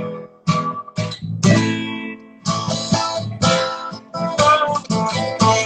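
Acoustic guitar strummed in rhythmic chord stabs, each ringing and cut short, with brief breaks between groups: an instrumental passage between sung lines of a worship song.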